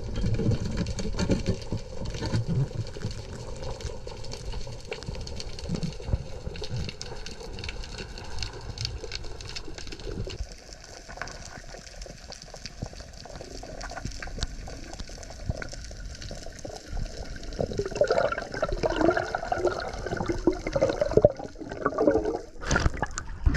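Water rushing and gurgling around a spearfisher's underwater camera as he swims, with scattered clicks; the gurgling grows louder in the last few seconds.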